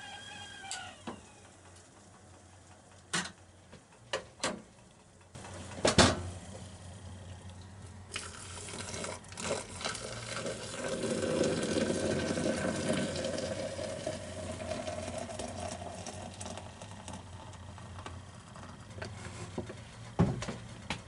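Stainless stovetop kettle's whistle dying away within the first second, a few sharp metal clinks with one loud knock about six seconds in, then boiling water poured from the kettle into a glass French press for about ten seconds, heaviest in the middle of the pour. A knock near the end as the press lid is set on.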